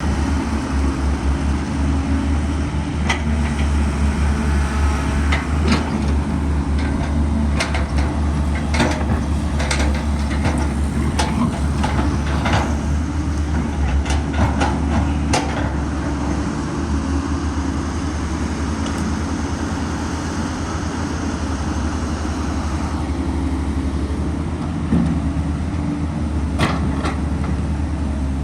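A heavy diesel earthmoving machine's engine running with a steady deep drone, with frequent sharp knocks and clanks through the first half or so, then only a few.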